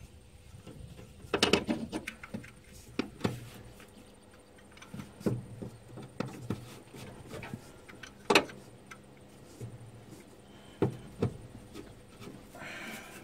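Scattered metallic clicks and knocks of a spanner working on the alternator's front pivot bolt as it is tightened, with a short scrape near the end.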